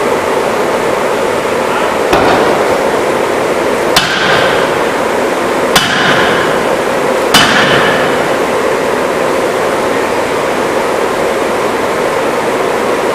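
Forging hammer striking four times, a blow every one and a half to two seconds, each a sharp metallic bang that rings briefly. A loud steady noise runs underneath.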